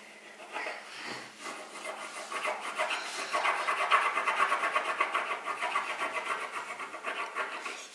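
Blue wax crayon scribbled rapidly back and forth on paper, a fast, even rasp of many strokes a second that builds up about a second and a half in and is loudest in the middle.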